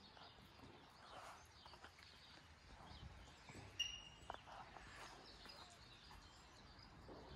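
Near silence: faint outdoor background hiss, with a brief sharp click and a short high tone about halfway through.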